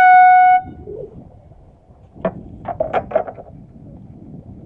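Air horn blasting once, loud and about half a second long, its pitch dipping slightly as it starts: the start signal for a sailboat race. A quick run of short knocks follows about two to three seconds in.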